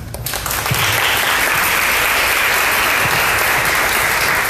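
Audience applauding at the end of a talk. The clapping builds within the first second and holds steady.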